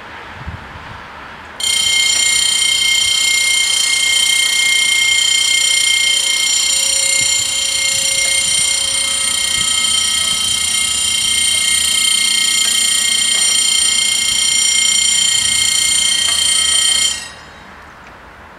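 The French level crossing's two electric warning bells ringing continuously, high and shrill. They start suddenly about a second and a half in and cut off abruptly about seventeen seconds in, once the barriers are fully down.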